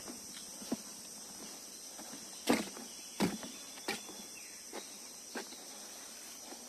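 Footsteps: a few irregular knocks, the loudest about two and a half seconds in and the rest spaced roughly a second apart, over a steady high-pitched background hiss.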